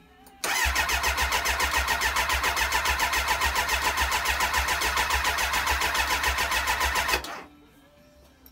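Kawasaki ZX-9R's inline-four engine cranking on its electric starter with the choke on, turning over in a quick, even rhythm for about seven seconds without firing, then stopping abruptly. It spins over easily and gets fuel, and the owner guesses the spark plugs are at fault.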